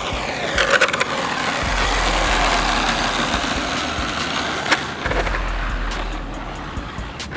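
Redcat Earthquake 8e RC truck's sensored brushless motor (1350kV, 30-tooth pinion) and drivetrain whirring, with its tyres rushing on asphalt as it speeds along. The sound builds over the first couple of seconds and then fades away, and a few sharp clicks are heard.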